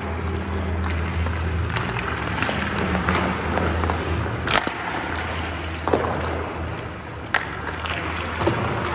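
Ice hockey skates scraping and sliding on the ice, with a few sharp clacks of stick and puck, over a steady low hum in the rink.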